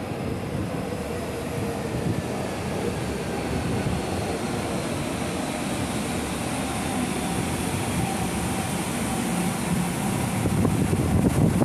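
São Paulo Metrô Line 3 train K24 running into the station platform and slowing, a steady rumble with a faint falling whine, growing louder near the end as the cab draws level.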